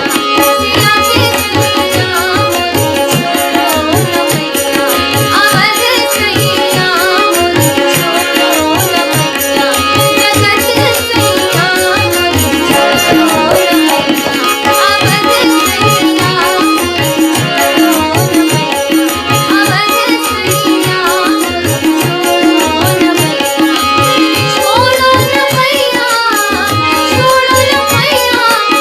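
Devotional Hindi bhajan music: tabla keeps a steady, even rhythm under a held drone, with a melody moving on top.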